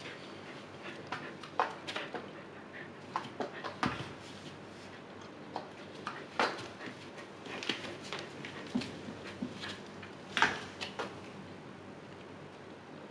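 Siberian husky in labor pawing and shuffling in shredded paper on the cardboard floor of her whelping box: irregular scratching, rustling and scattered clicks of claws on paper and cardboard, the loudest about ten seconds in, dying away near the end.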